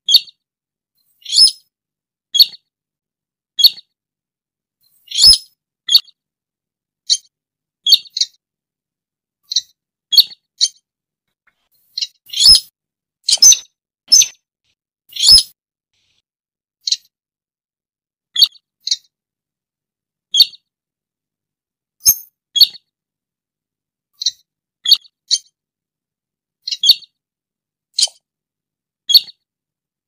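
Slaty-breasted rail (sintar) calling, a lure call for trapping: short, sharp, high-pitched notes about once a second at uneven intervals, a few of them longer and louder.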